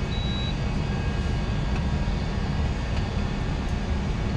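Steady low rumble and hum of running machinery, with one short high beep just after the start.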